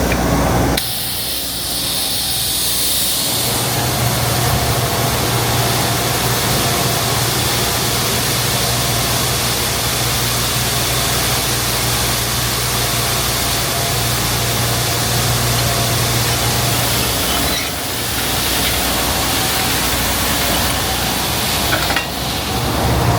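A heavy vehicle's engine running steadily under a loud hiss of wind or road noise. The sound changes abruptly about a second in and twice more near the end.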